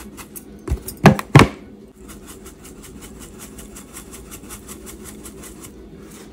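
Dried parsley shaken out of a spice jar onto a bowl of seasoned mince: two sharp knocks about a second in, then a quick, even rattle of taps, about six a second, for some four seconds. A steady low hum runs underneath.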